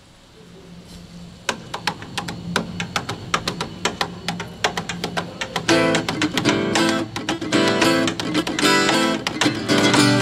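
Acoustic guitar playing a song intro, picked single notes at first, then fuller strummed chords from about six seconds in, over a low held note.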